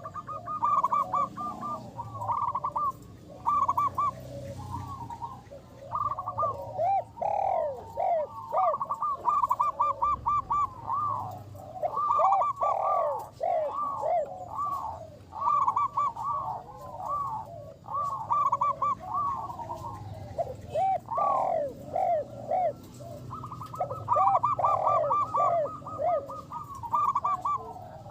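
Zebra doves (perkutut) cooing: continuous strings of short, arched coo notes, several voices overlapping at different pitches.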